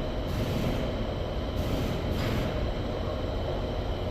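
Steady low mechanical rumble with hiss, the background noise of an auto shop, with short brief hissy bursts about half a second and two seconds in.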